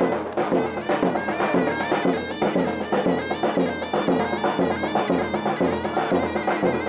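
Traditional Turkish davul-and-zurna music: a shrill, wavering reed melody over a steady drum beat.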